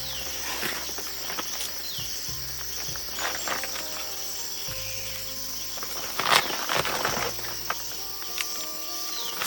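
Steady high-pitched insect chorus with scattered rustling and clicking handling noises, the loudest about six seconds in, over soft background music whose low notes change every few seconds.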